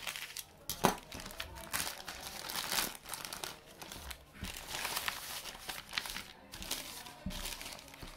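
Plastic courier mailer bag crinkling and tearing as it is slit with a utility knife and pulled open by hand, with one sharp, louder crackle about a second in.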